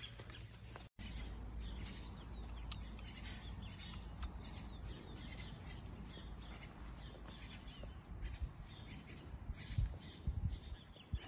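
Birds chirping over a steady low rumble, with a few low thumps near the end.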